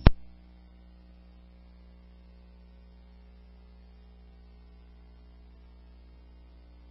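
A scanner radio's squelch tail: one sharp, loud burst of static as the transmission drops out, then a steady low electrical hum with faint hiss from the idle receiver.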